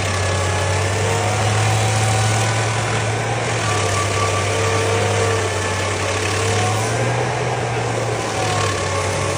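A large engine on heavy equipment running steadily, a constant low hum under broad noise with faint wavering tones above it.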